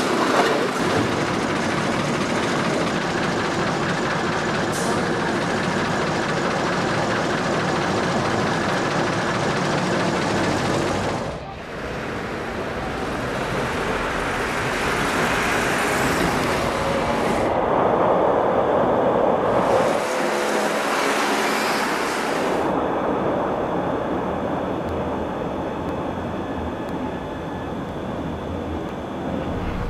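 Electric tram running along its track, a steady running noise with road traffic around it; the sound dips and changes abruptly about eleven seconds in.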